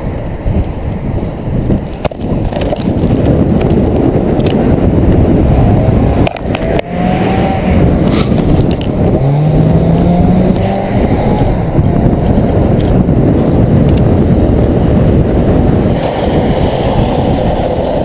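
Loud wind buffeting the microphone of a camera on a moving rider, with road noise. About seven to eleven seconds in, a brief pitched tone rises slightly.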